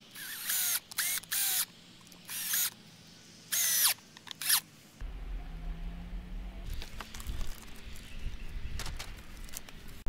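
Cordless drill driving a screw into wood in six short bursts, each run's pitch rising as the motor spins up. About halfway through it gives way to a steady low rumble of wind on the microphone.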